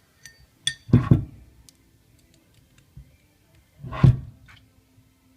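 Metal tools and parts being handled: a few short ringing metal clinks, then two louder knocks about a second in and about four seconds in.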